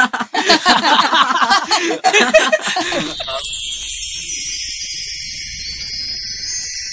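Voices talking and laughing, cut off about three seconds in by a music cue of high, shimmering bell-like tones that carries on steadily.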